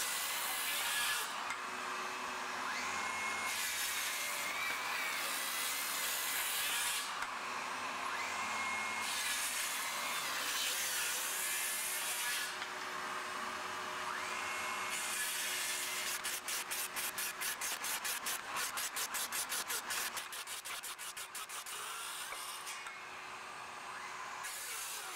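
Flex 24V brushless inline circular saw making repeated crosscuts through 2x12 lumber. Its motor whine sags under load during each cut and recovers between cuts, over a steady hum from a shop vacuum on the dust port. About two-thirds through there is a few-second stretch of fast, even pulsing.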